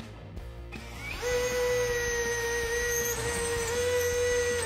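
Einhell TP-CD 18/60 Li BL brushless cordless drill boring into a block wall in plain rotary mode, without hammer action. The motor starts about a second in and runs with a steady whine under load, with two slight dips.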